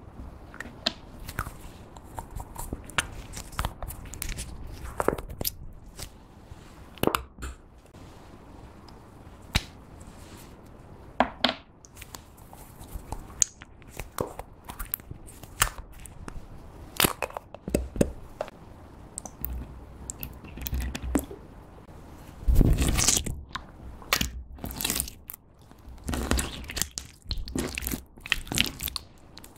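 Clear slime mixed with glitter glue, folded and squeezed by hand: irregular sticky clicks, pops and squelches of trapped air, growing denser and louder about two-thirds of the way through.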